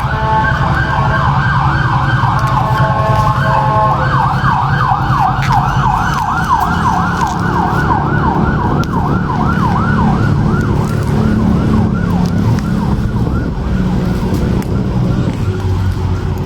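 Electronic emergency-vehicle siren: a steady siren tone for about four seconds, then a fast yelp of quick pitch sweeps, about three or four a second, that fades away over the next ten seconds. A low engine rumble runs underneath.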